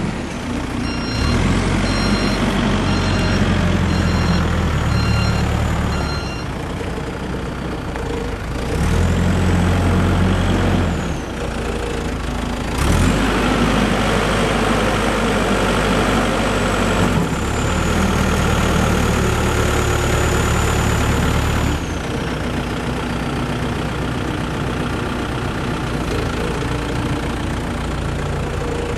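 Volvo BL60 backhoe loader's diesel engine running, revving up under load in three long stretches and dropping back to idle between them, with a high whine rising and falling alongside. Its reversing alarm beeps steadily for the first several seconds.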